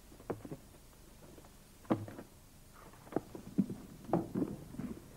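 A series of irregular knocks and thumps, the loudest about two and three seconds in.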